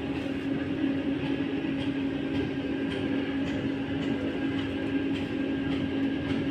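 Heavy machinery running steadily: a constant hum over a rough, rumbling noise.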